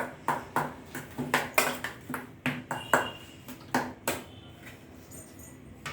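Spoon clinking against a bowl while stirring spice powders into mashed potato: about a dozen irregular knocks, one ringing briefly, fading after about four seconds.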